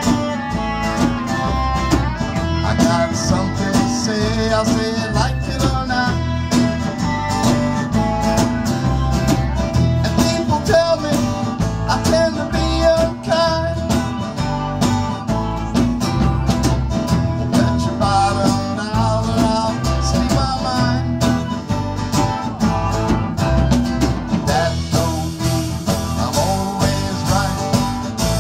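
Live band playing a guitar-driven song: acoustic and electric guitars over a drum kit keeping a steady beat.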